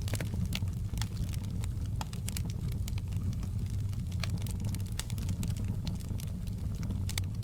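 Wood fire in a fireplace crackling, with irregular sharp pops and snaps several times a second over a steady low rumble of the burning.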